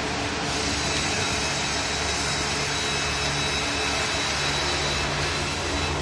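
Steady workshop machine noise: a continuous whooshing hiss with a thin high whine and a low hum underneath. The hiss grows stronger about half a second in and eases off near the end.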